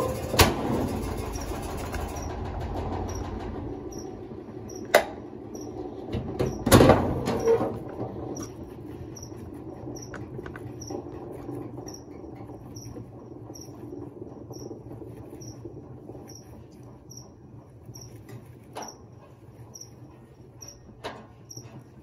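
Electrolux Top8 top-loading washing machine winding down: a low hum fades slowly, with a few sharp knocks in the first eight seconds. A short high chirp repeats about every two-thirds of a second.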